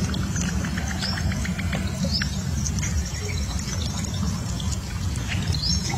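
A young bird peeping in short, high, rising chirps every second or so, over a steady low rumble, with small scattered clicks and patter.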